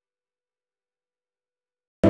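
Near silence: the audio track is essentially blank.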